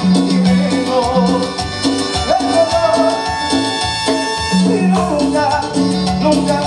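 Live Latin dance orchestra playing salsa-style music: lead vocals over a repeating bass line and percussion.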